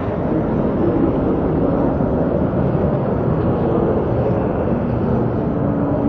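Steady low rumble of busy outdoor city ambience, with indistinct voices of people in a crowd mixed in.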